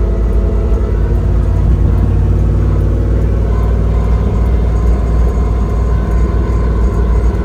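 1968 Ford highboy truck running, a steady low engine rumble; about halfway through, a thin steady whine joins in.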